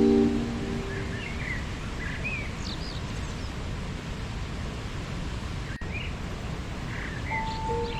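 Waterfall rushing steadily, with small birds chirping now and then. Sustained meditation-music tones fade out within the first second and new tones come in near the end.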